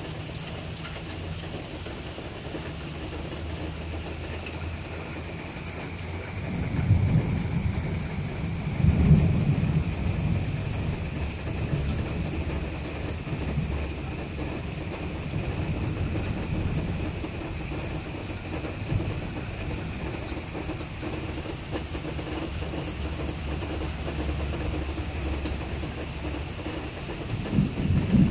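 Steady rain falling, with a roll of thunder that builds about six seconds in, peaks twice and rumbles on for about ten seconds, and another rumble of thunder near the end.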